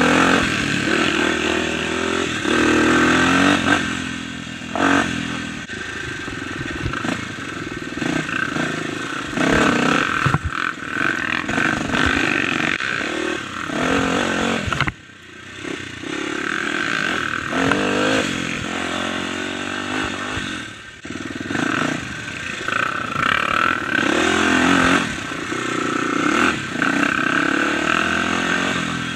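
Dirt bike engine revving up and down as it is ridden over a rough trail, with short knocks from the bumpy ground. The throttle is shut off briefly about halfway through and again a few seconds later.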